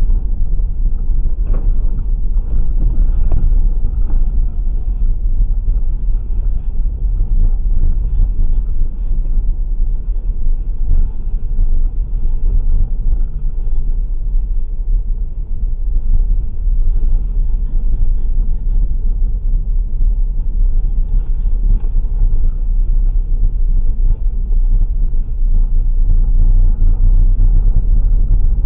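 Steady low rumble of a Subaru Outback on the move, road and engine noise.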